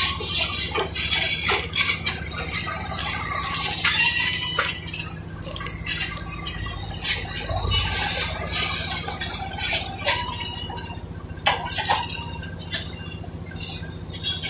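Caterpillar crawler bulldozer's diesel engine running with a steady low drone, under frequent metallic clanks and clinks from its steel tracks and the concrete rubble it is crushing.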